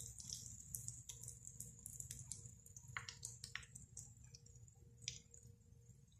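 Oats-coated chicken pieces frying in hot oil in a kadai: faint sizzling with many scattered small pops and crackles.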